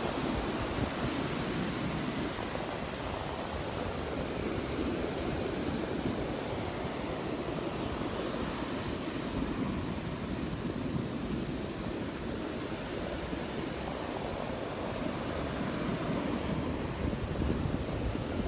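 Gulf of Mexico surf washing steadily onto the beach, with wind buffeting the microphone in a low, fluttering rumble.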